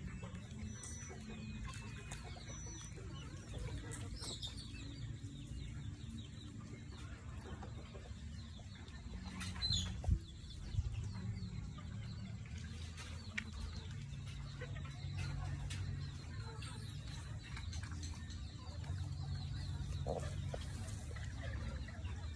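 Chickens clucking and calling off and on over a steady low rumble, with one sharp knock about ten seconds in.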